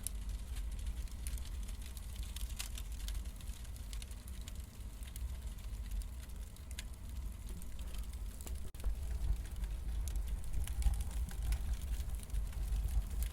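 Crackling wood fire: scattered sharp pops and crackles over a steady low rumble.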